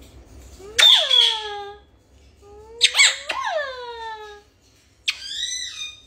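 Two kisses: each is a loud smack trailing into a squeaky 'mwah' that falls in pitch, the second after a quick run of smacks. Near the end comes a short, higher squawk from a quaker parrot.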